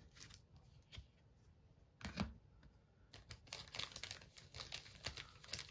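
Faint rustling and light clicks of a trading card being handled and slid into a soft plastic penny sleeve, getting busier from about three seconds in.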